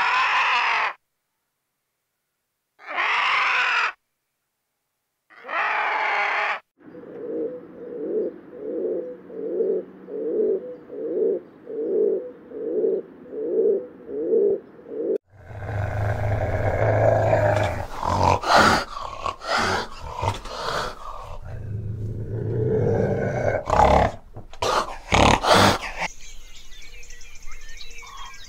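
Three loud, harsh, caw-like bird calls a couple of seconds apart, then rock pigeons cooing in a soft, steady series of low coos about one a second. After that comes a louder, deeper, rough animal-like sound with sharp knocks, and near the end a quieter outdoor background with birds.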